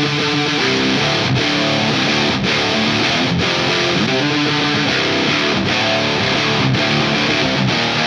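Heavily distorted electric guitar playing a riff on its own, an ESP LTD NW-44 with a Bare Knuckle Aftermath bridge pickup through a Wangs tube amp's high-gain drive channel. Ringing notes with an accented hit about once a second, and no drums or bass.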